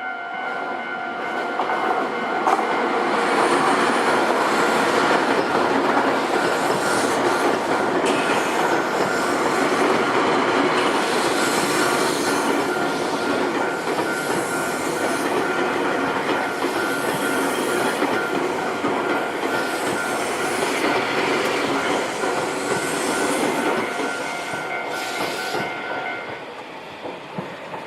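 A Nankai Koya Line train runs over a Japanese level crossing with a loud, steady rushing and rumbling, while the crossing's electronic warning bell rings continuously. The bell stops about two seconds before the end as the train noise fades.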